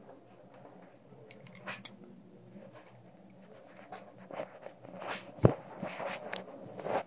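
Handling noises of thin plastic water tubing: light scraping and rubbing with scattered small clicks, busier in the second half, and one sharp knock about five and a half seconds in.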